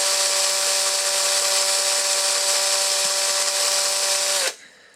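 Small electric drill with a 1.2 mm bit running at steady speed with a high whine, then switched off about four and a half seconds in, its pitch dropping slightly as it stops.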